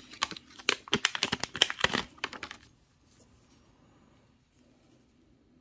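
Plastic packaging crinkling, with quick clicks of silver rounds knocking together, as a cotton-gloved hand picks a round out of the bagged pile. It stops about two and a half seconds in.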